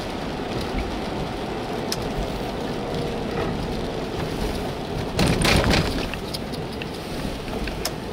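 Steady road and engine noise inside a moving car's cabin, with a brief louder rush about five seconds in.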